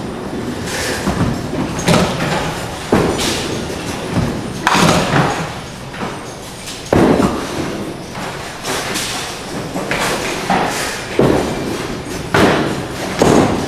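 Duckpin bowling alley: a string of sharp knocks and clatters from balls and pins, about one every second or so, over a steady rumble of balls rolling on the wooden lanes.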